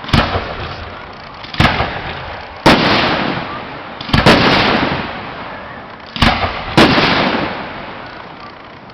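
Fireworks shells bursting: six loud bangs at uneven intervals, each trailing off in a long rolling echo.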